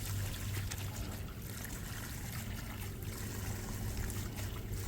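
Water running steadily from a garden hose into an inflatable kiddie pool, with a steady low hum underneath.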